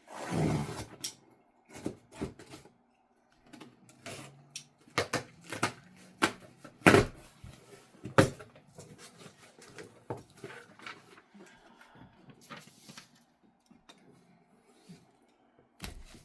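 Fabric and packaging being handled: scattered rustles and light clicks, with two sharper knocks about seven and eight seconds in.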